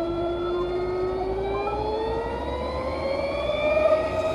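CSC ES5 electric scooter's 5000 W mid-drive motor whining as the scooter accelerates, several tones climbing slowly and steadily in pitch.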